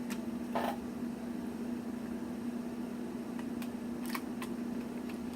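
A few light clicks and taps of a die-cast and plastic toy robot's parts being handled, over a steady hum.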